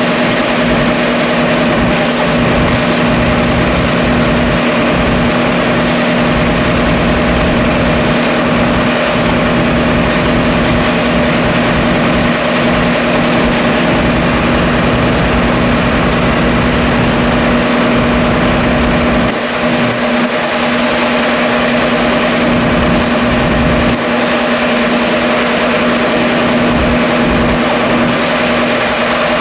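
A steady mechanical drone with a constant hum, running evenly throughout.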